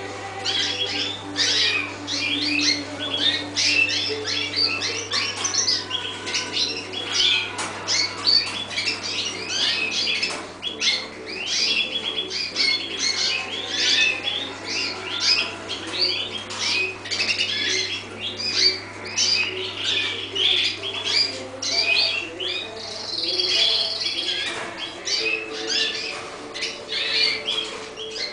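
Many caged canaries chirping and singing at once: a dense, unbroken chorus of short high notes and trills overlapping one another, with a steady low hum underneath.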